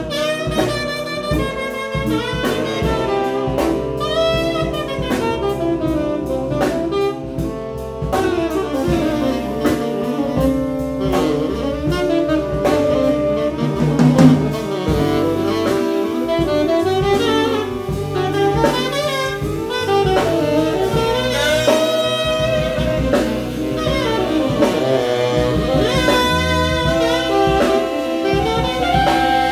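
Live jazz from a saxophone section with electric bass and drum kit, the saxophones playing melodic lines over a steady groove. Fast cymbal ticks run through the first several seconds.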